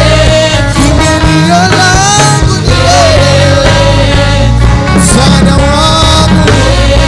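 Loud live gospel praise band music, with a steady bass and a long held melody line.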